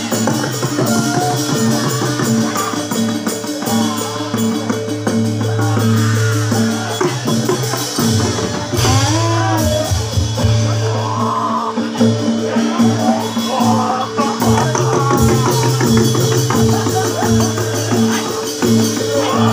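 Live jathilan accompaniment music: evenly repeated pitched percussion notes over sustained low tones, with jingling percussion. A voice rises and falls over it at several points.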